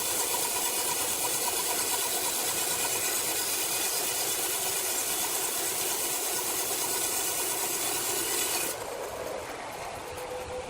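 Sawmill machinery running steadily with a loud, high hiss and a fast repeating whine. Near the end the hiss cuts off suddenly and a quieter, lower machine hum remains.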